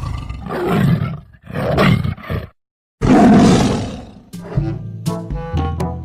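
Tiger roaring: a few short rough roars, a brief full silence about two and a half seconds in, then one loud roar. Music with held pitched notes comes in about four and a half seconds in.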